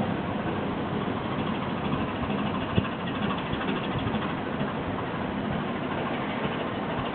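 Steady mechanical running noise with hiss, the drive machinery of a vertical-lift railroad bridge lowering its span, with a single sharp click about three seconds in.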